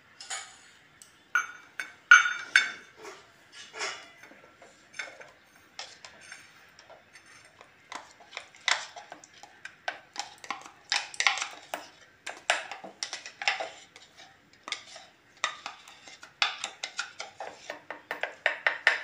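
A metal spoon scraping thick ground chutney out of a mixer-grinder jar into a steel bowl: a run of irregular scrapes, taps and clinks of the spoon against the jar and the bowl.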